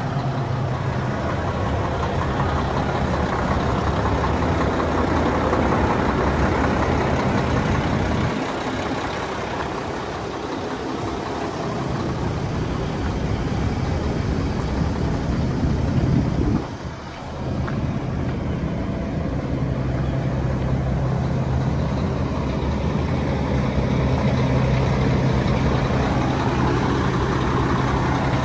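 Mack E7 inline-six diesel in a Mack Vision semi tractor (460 hp, emissions deleted) idling with a steady, even drone. The sound is briefly quieter about two-thirds of the way through.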